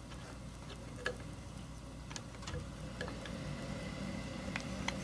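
Light clicks and taps of hand plane parts being handled while fitting the rear tote, about eight at irregular intervals, over a low steady hum.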